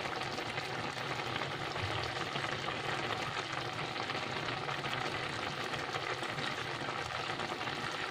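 Thin tomato gravy at a rolling boil in a pan, a steady crackling bubble, kept at the full boil needed for raw black urad dal batter dumplings to set when dropped in.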